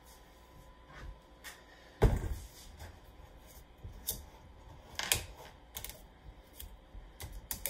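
Bottle handling on a kitchen countertop: a string of sharp clicks and light knocks, with one heavier knock about two seconds in.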